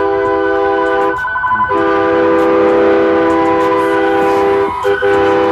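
Loud multi-note train-style air horn on a passing parade float, sounding a steady chord in long blasts, with short breaks about a second in and shortly before the end.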